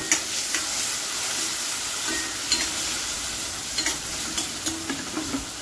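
Chopped tomato and onion sizzling in hot oil in a stainless-steel kadhai while a metal spoon stirs them, scraping and clicking against the pan now and then.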